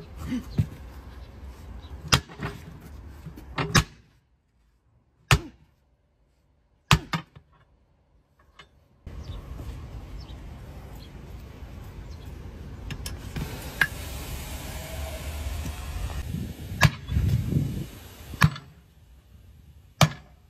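Sharp metal strikes, about ten spread through, as a tyre bar and hammer work the bead of a truck tyre on its steel wheel rim. From about halfway in, a steady rushing hiss of compressed air runs for several seconds while the air hose is on the valve.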